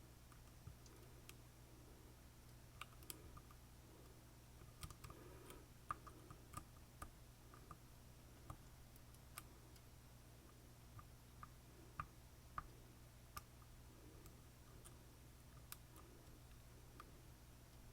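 Faint, irregular clicks of a lock pick and tension tool working the pins of an Assa Twin Combi high-security pin-tumbler lock during picking.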